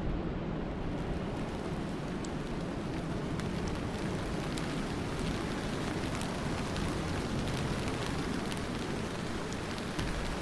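Steady rain with no thunder: an even hiss, with scattered sharp drop ticks on top.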